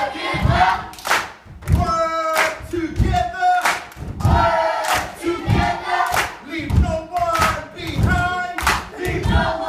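A group of children chanting and singing together in unison, in short shouted phrases. A low thump keeps a steady beat under the voices, nearly two a second.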